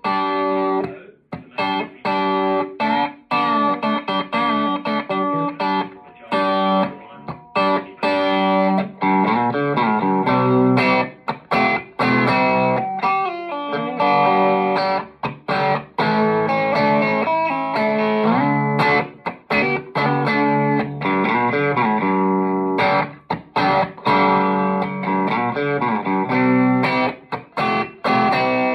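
Electric guitar played through a Soldano amplifier with light overdrive: picked notes, chords and short runs with clear attacks and brief pauses between phrases.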